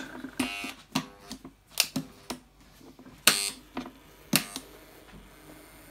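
A series of irregular sharp clicks and snaps, with a short buzz about half a second in and the loudest snap a little after three seconds.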